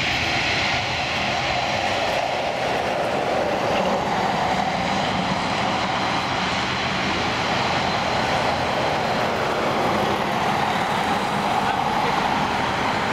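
Jet airliner's engines running, a steady, even noise with a low hum underneath that doesn't build or fade.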